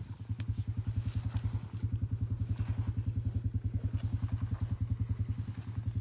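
An engine idling: a steady, rapid low putter of about ten beats a second.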